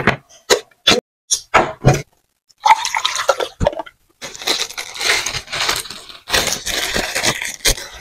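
A metal spoon scoops thick soup from a metal pot onto a plate, making a run of short clicks and scrapes. Water is then poured from a bottle into a glass with a splashing hiss, and a plastic bag crinkles near the end.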